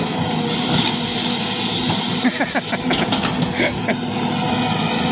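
Huina RC excavator's electric motors and gearboxes whirring steadily as it works.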